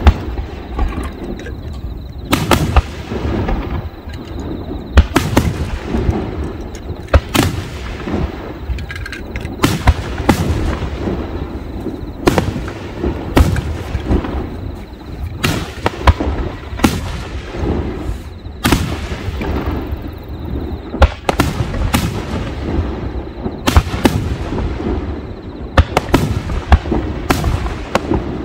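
Aerial fireworks shells bursting in quick succession: sharp bangs about once a second at irregular intervals, with a steady rumble between them.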